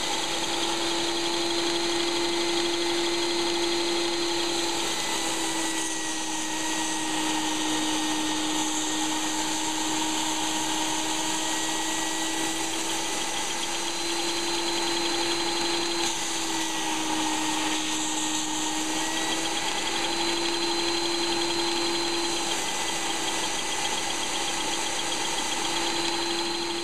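Shop vac motor running steadily under a strong hiss of air, its hum wavering a little in pitch, while its hose drives a Lego three-cylinder air engine. The engine is running roughly rather than smoothly on the shop vac's air.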